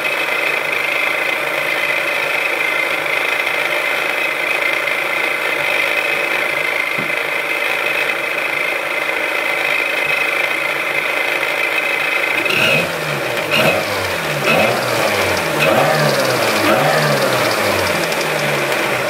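Supercharged Chevy Cobalt 2.0 L engine running with a steady high-pitched whine from its Eaton supercharger, a noise that has started all of a sudden. Past the middle the engine speed rises and falls several times, like quick blips of the throttle.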